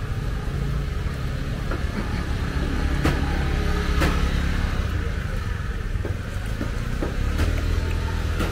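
Street market ambience: a steady low rumble of motor traffic, with a few sharp clicks or knocks, the clearest about three and four seconds in.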